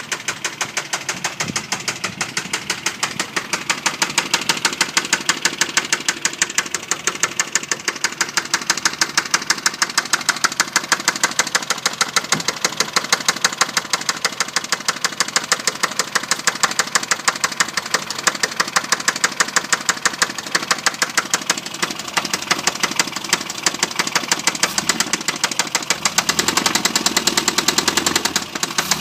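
Rover Mini Cooper 1275cc SPI four-cylinder A-series engine running with a loud, rapid, regular knocking from inside the engine, about four or five beats a second. The knock persists with the auxiliary drive belt removed, which rules out the water pump, and it began after the engine overheated and boiled its coolant.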